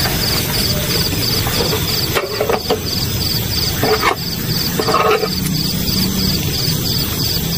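Night insects chirping in steady high pulses, about three a second, over constant outdoor background noise, with a few short clinks and clatters of a metal camp pan and utensils being set down and handled. A low steady hum comes in about five and a half seconds in.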